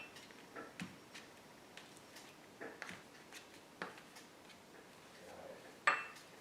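Scattered light taps and clicks of craft tools on a work table, with one sharper clink that rings briefly near the end.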